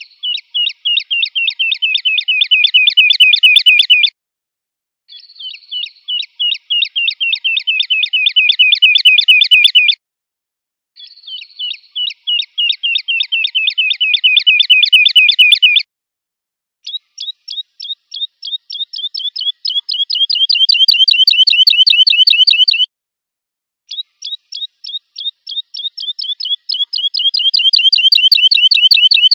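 A lark singing: five loud phrases, each a rapid trill of repeated high notes lasting four to six seconds, separated by pauses of about a second. The first three phrases open with a brief held note.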